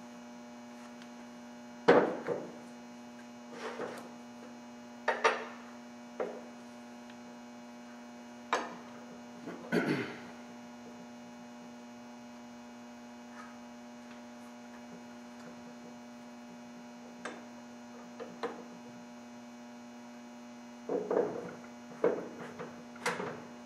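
Steady electrical mains hum, with scattered metallic clicks and knocks from a hand-lever arbor press and the parts on it as a tapered roller bearing cup is pressed into place. A cluster of knocks comes close together near the end.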